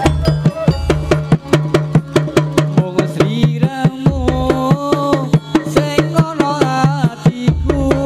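Javanese topeng ireng dance music driven by drums: quick, even drum strokes, several a second, over a steady low drone, with occasional deep bass hits and a bending melody line.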